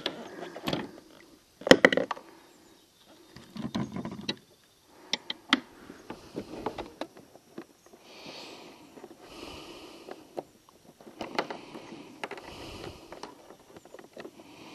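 Handling noise as a just-landed crappie is swung in on the line and gripped by hand in a plastic kayak: irregular clicks, knocks and rustles, the loudest cluster about two seconds in.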